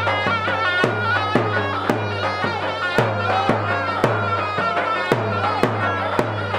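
Folk dance music: a loud reed pipe playing a fast, ornamented melody over a drum beaten about twice a second.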